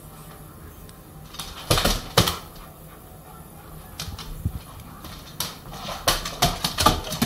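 A large dog's claws clicking and paws knocking on a hard plank floor as it scrambles about: a short cluster about two seconds in and a quicker run of clicks near the end.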